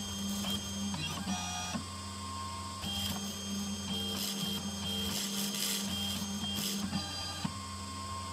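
Small 2020b desktop CNC machine milling a copper-clad PCB with a V-shaped engraving bit. The spindle motor hums steadily while the stepper motors whine, their tones jumping to new pitches every second or so as the cutter moves along the traces.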